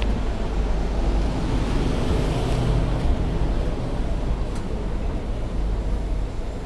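Steady low rumble and hiss of a passenger jet bridge's background noise, without words or music.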